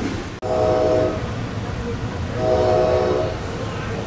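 A train horn sounds two blasts, the second longer, over the steady low rumble of an NJ Transit commuter train running, heard from inside a passenger car.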